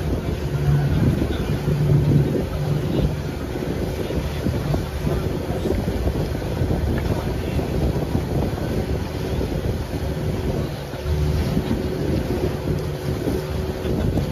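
Wind buffeting the microphone over choppy sea water, with a faint steady hum of a boat motor underneath.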